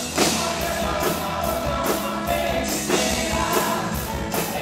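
Sertanejo band music with male singing over drums and acoustic guitar.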